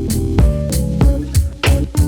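Background music with a steady beat: plucked guitar and bass over drums.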